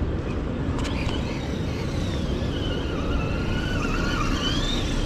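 A car running, a steady low rumble of engine and road noise with a faint whine that wavers in pitch above it.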